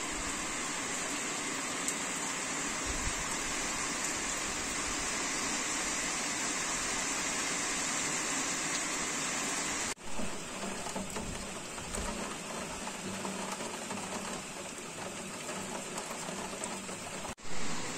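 Steady hiss of rain falling, broken by abrupt cuts about ten seconds in and near the end.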